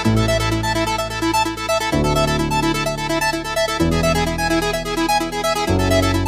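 Electronic background music: synthesizer chords changing about every two seconds under a quick, repeating keyboard figure.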